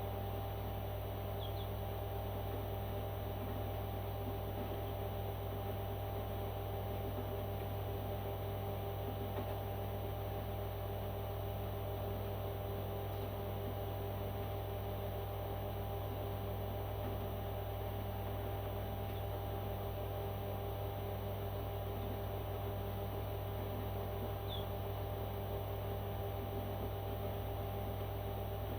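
Steady low electrical hum with a few fixed tones above it and no change in level. Two faint, short, high chirps come through, one about a second and a half in and one near the end.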